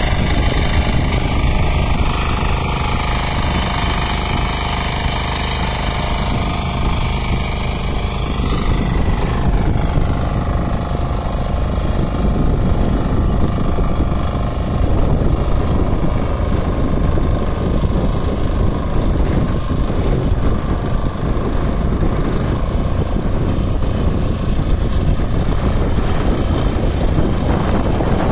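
Weima diesel power weeder's single-cylinder diesel engine running steadily under load while its rear rotary tines till the soil. The sound turns duller about nine seconds in.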